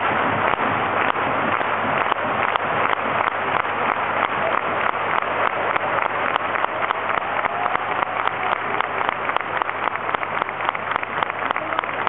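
Large stadium crowd clapping and cheering, the clapping falling into a steady rhythm of about three claps a second.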